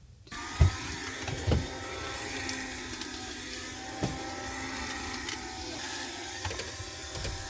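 Handheld window vacuum switching on and running with a steady motor hum, sucking water off the windows. A few short knocks as it bumps against the glass.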